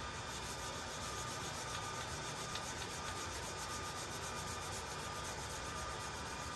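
Sanding sponge rubbing against a pool cue turning in a wood lathe, wet-sanding the finish: a steady, even rubbing hiss with a faint steady whine underneath.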